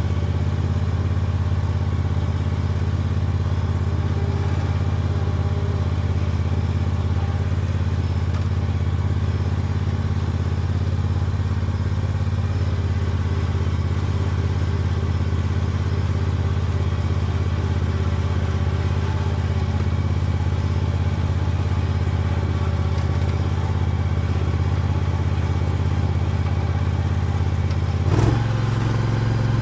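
Hustler Raptor SD zero-turn mower's engine running steadily as the mower is driven. Near the end the engine note changes abruptly, with a brief knock.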